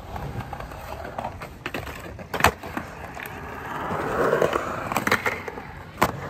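Skateboard wheels rolling on a concrete skatepark bowl, growing louder for a second or so around four seconds in. Sharp knocks of the board come about two and a half seconds in and again near the end.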